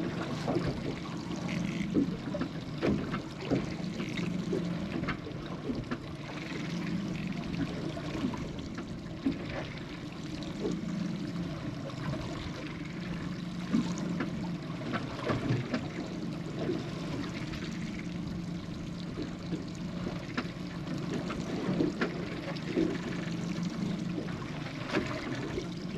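Water sloshing and trickling against the hull of a small fishing boat, with scattered light knocks.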